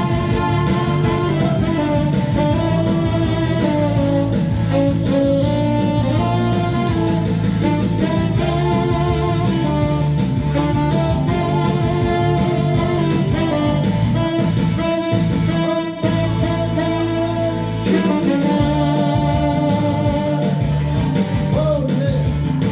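Saxophone playing a melody in long held notes over a backing accompaniment with guitar.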